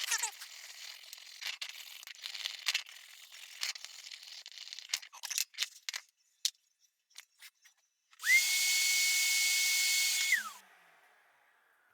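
Wire brush scrubbing and scratching at metal, with scattered light clicks and taps. About eight seconds in, a small vacuum cleaner runs for about two seconds. Its motor whine spins up, holds steady and winds down as it is switched off.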